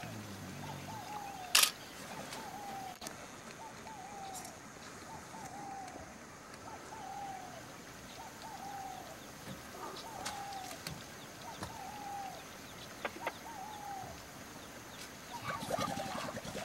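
A bird calling over and over, a short falling note about once a second. A sharp click about a second and a half in is the loudest sound.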